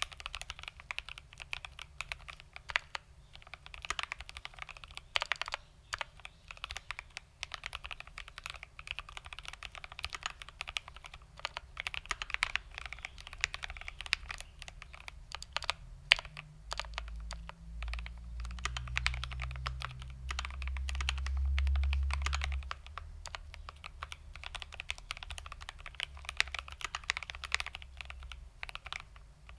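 Continuous typing on a GMMK Pro mechanical keyboard with lubed Tangerine linear switches on a polycarbonate plate, under Cherry-profile ABS doubleshot keycaps: a rapid, uneven stream of keystrokes. A low rumble swells up about halfway through and fades out some six seconds later.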